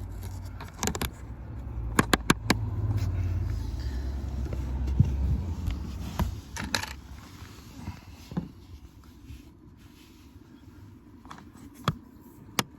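Handling noise of a car's footwell fuse box cover being refitted: a cluster of sharp plastic clicks about a second or two in, with scattered clicks and scraping later as its fasteners are pushed back into place.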